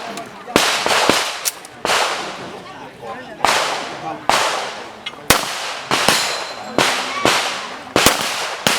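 Handgun shots fired in quick, irregular strings, about fifteen in all, each a sharp crack with a short echoing tail.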